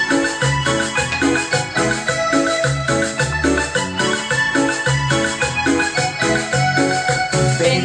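Instrumental break of a cumbia song: an electronic keyboard plays a melody over a steady repeating bass and percussion beat, with no singing.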